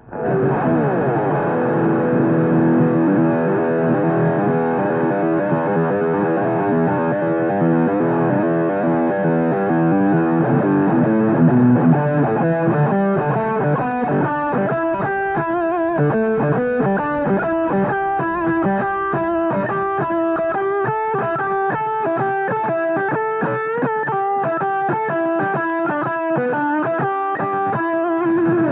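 Epiphone ES-335 Dot semi-hollow electric guitar, two humbuckers, played amplified: ringing chords for about the first twelve seconds, then a faster picked single-note line.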